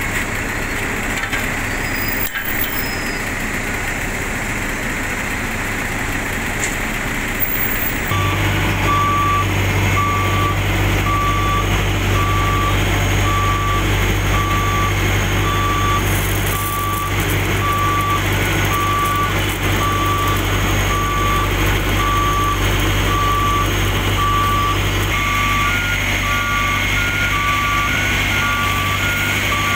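Diesel road-paving machinery running. After about eight seconds a heavy engine's low hum sets in with a reversing alarm beeping about once a second, and near the end a second, higher reversing alarm joins, beeping faster.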